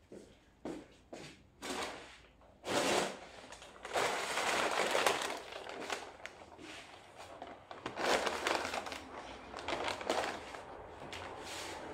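Large paper takeaway bag rustling and crinkling in irregular bursts as items are pulled out of it, after a few light knocks in the first couple of seconds.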